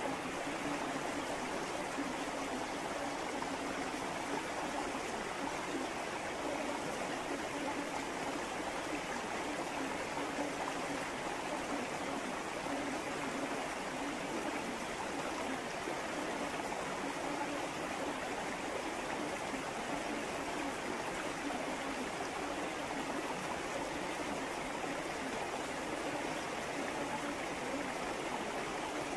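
River water flowing steadily, an even rushing and trickling stream.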